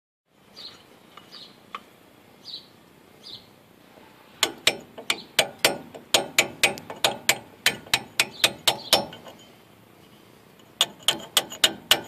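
Hammer striking a chisel against the rusted hub bore of a truck's front steering knuckle, knocking off rust scale that had puffed up where the old wheel bearing wasn't seated. The sharp metal strikes come in a quick run of about four a second, stop, then start again near the end.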